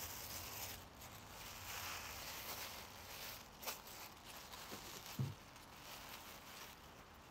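Black plastic bag crinkling and rustling as a hand digs into and scoops fishing paste bait inside it. A short low thump comes about five seconds in.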